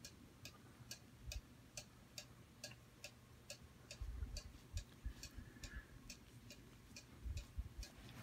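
Faint, even ticking, about three ticks a second, over a low steady hum, with a few soft low rumbles.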